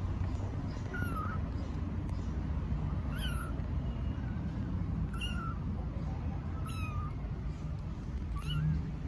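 Young kittens mewing: five short, high-pitched cries spaced about every second and a half to two seconds, over a steady low background rumble.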